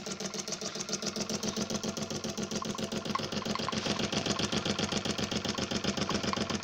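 Scratch-built live-steam model engine running steadily, its steam exhaust beating in a quick, even rhythm of several beats a second over a steady hum.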